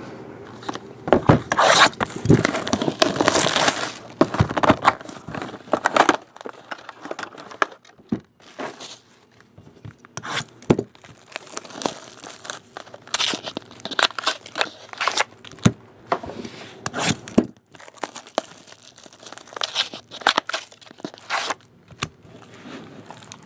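Plastic shrink-wrap being torn and crinkled off a sealed box of trading cards, then the packs handled. It is a run of tearing, crackling rustles, densest in the first six seconds, then coming in short separate bursts.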